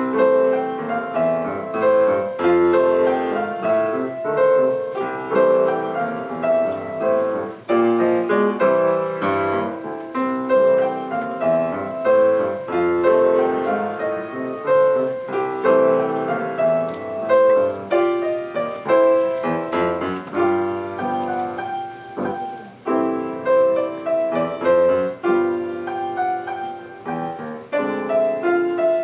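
Solo piano playing a piece with a steady run of struck notes and chords.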